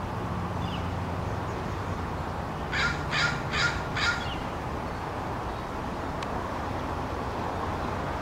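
Crow cawing four times in quick succession about three seconds in, over steady background noise.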